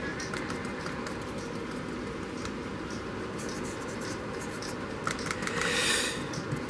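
Small brush with stiff bristles dabbing and scrubbing weathering powder onto the plastic roof of an HO-scale locomotive shell: faint, irregular ticks, with a louder scratchy rush about six seconds in, over a steady background hiss.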